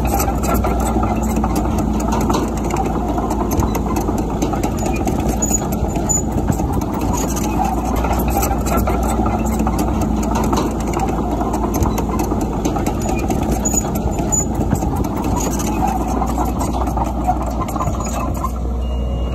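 Heavy equipment diesel engine running steadily, with a constant low hum.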